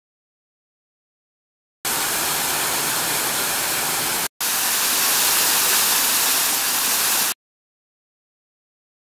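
A sheet of water from a wall fountain pouring onto a paved basin: a loud, steady splashing rush. It cuts in suddenly about two seconds in, breaks for an instant near the middle, and cuts off dead about two seconds before the end, with total silence before and after.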